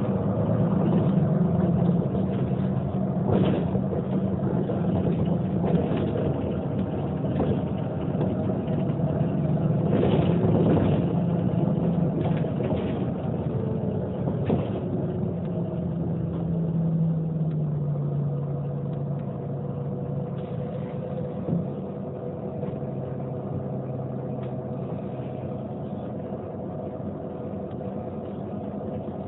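Diesel engine of a Neoplan N 4416 city bus idling while it stands still. Its pitch steps down to a lower idle a little past halfway. A few short sharp sounds come in the first half.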